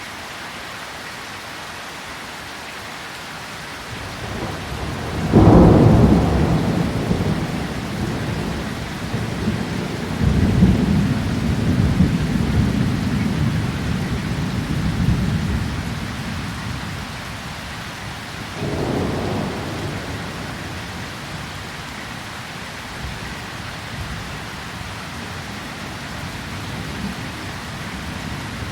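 Steady rain falling, with rolling thunder. A loud clap about five seconds in rumbles on for some ten seconds. A second, weaker clap comes near nineteen seconds and fades over a few seconds.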